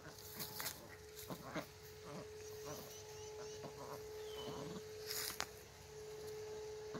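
Cayuga ducks giving short, soft quacks now and then while foraging on grass, over a steady faint hum.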